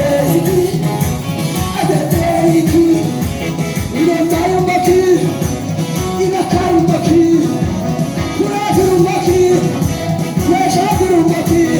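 A song playing: sung melody over full band accompaniment, with a steady beat underneath.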